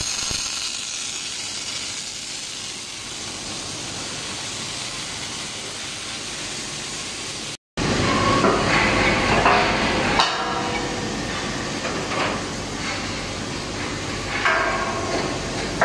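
Welding arc of an automatic pipe-and-flange welding machine hissing steadily. After a short break about seven and a half seconds in, it gives way to louder, irregular metallic clanks and knocks.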